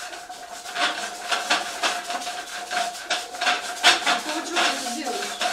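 New paint roller rolled back and forth along a strip of sticky masking tape, the tape crackling and ticking as it lifts loose fibres off the roller's nap before painting. A steady faint hum runs underneath.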